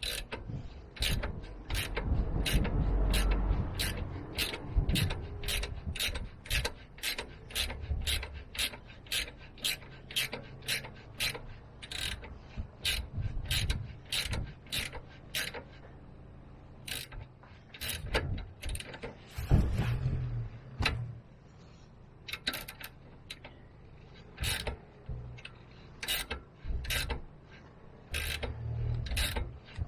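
Hand ratchet wrench clicking steadily, about two clicks a second with a couple of short pauses, as a suspension-arm bolt is turned. There are a few dull knocks of tool on metal.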